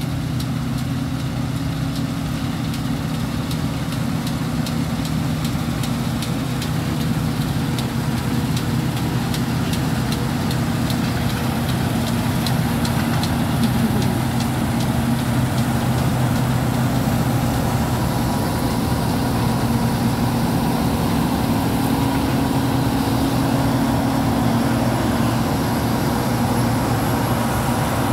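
A John Deere combine harvester working through a cereal field: a steady diesel engine drone with the harvesting machinery running, growing louder over the first half as the machine draws close.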